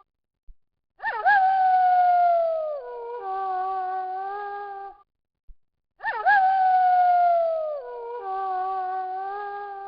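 Wolf howling: each howl jumps up sharply, holds a long note and slides down at the end, then runs into a steadier, level howl. The same sequence plays twice, about five seconds apart, with a second of silence before each.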